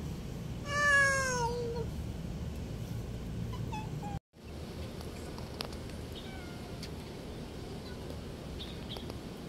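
A cat meows once, about a second in: a single loud call that falls in pitch. A few faint, short meows follow later.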